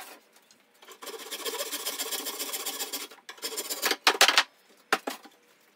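Hand saw cutting through wood: a fast run of short saw strokes for about two seconds, then a few slower, louder strokes, with a few sharp knocks near the end.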